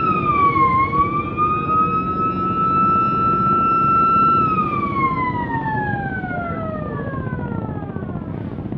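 A vessel's siren wailing: a single high note that dips and recovers early on, holds, then winds down steadily in pitch over about four seconds until it fades. Beneath it runs the steady low drone of a riverboat engine.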